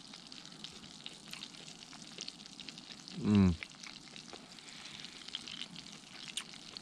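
Faint, steady crackle and sizzle of battered rabbit pieces frying in a cast-iron pan, with many small pops. About three seconds in comes a short, falling 'mmm' from a person tasting the meat.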